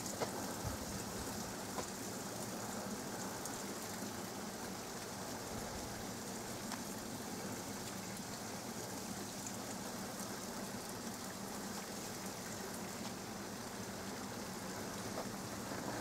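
Steady, even rush of running river water flowing among ice, with no breaks or distinct splashes.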